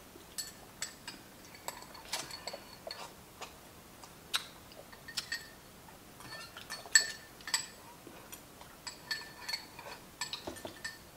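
Eating sounds: scattered light clicks and clinks of utensils against a ceramic bowl, some with a brief ring, amid soft mouth noises of chewing.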